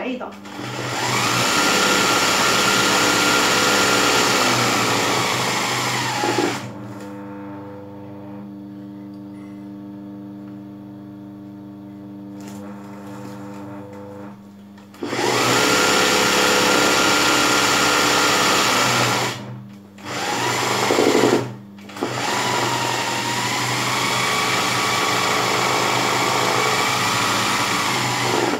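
Electric sewing machine stitching dense satin-stitch embroidery in runs of several seconds, three long runs and one short burst. The motor speeds up at the start of each run and winds down at the end. In the pauses a low steady hum remains.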